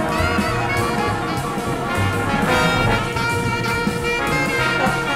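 Background music: jazz with brass, trumpets and trombones playing over a steady beat.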